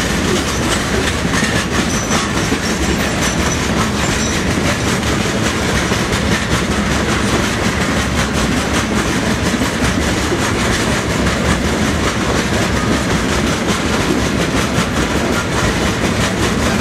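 Freight train's open-top gondola cars rolling past on the near track: a steady rumble of steel wheels on rail with a continuous run of clickety-clack over the rail joints.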